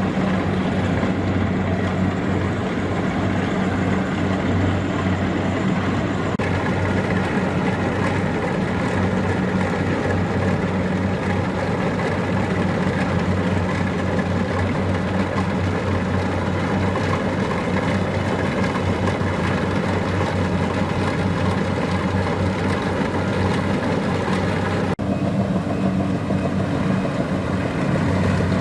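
Diesel engine of a Kubota DC-70 Plus rice combine harvester running steadily with a deep, even hum. The sound changes abruptly about six seconds in and again near the end.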